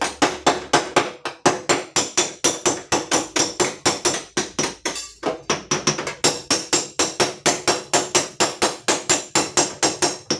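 Rapid, steady hammering on the steel sheet of a car door panel, about four to five ringing blows a second with a short pause about halfway: a badly creased dent being knocked back into shape.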